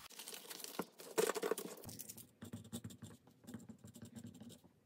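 Paper banknotes rustling as they are handled and counted. About two seconds in, this gives way to a pen scratching on paper as figures are written on a budget sheet.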